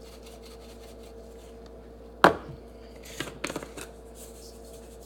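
Kitchen items being handled on a countertop: one sharp knock about two seconds in, then a quick run of lighter taps and clicks.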